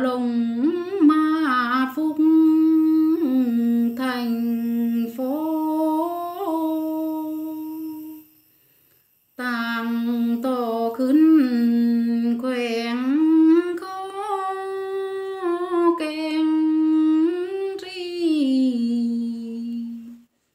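A woman singing unaccompanied in long, held, wavering notes, in two phrases with a short pause about eight seconds in.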